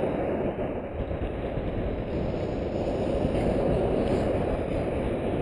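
Small surf waves breaking and washing up the beach close to the microphone: a steady, continuous wash of noise, heaviest in the low range.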